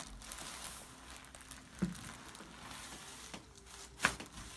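Quiet handling sounds on a chiropractic treatment table: a soft thump about two seconds in and a single sharp click near the end, over faint rustling.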